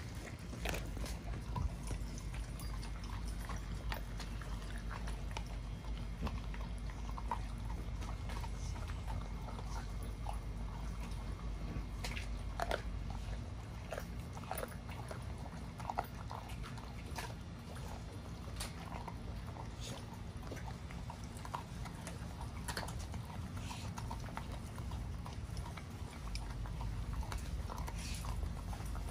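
XL pit bull chewing raw chicken: irregular crunches and clicks from its jaws on the meat and bone, over a steady low rumble.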